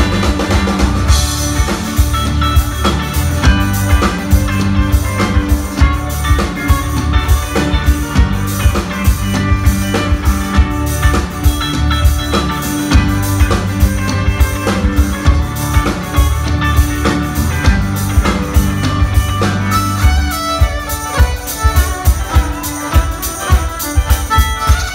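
Live band playing an instrumental passage: a drum kit keeps a steady beat under bass, acoustic guitar and keyboard, with a violin bowed over the top. About twenty seconds in the heavy bass drops back.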